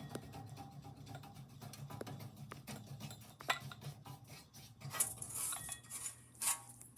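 A running ceiling fan with a steady low hum and rapid, regular light ticking. From about three and a half seconds in come a few louder separate clicks and knocks.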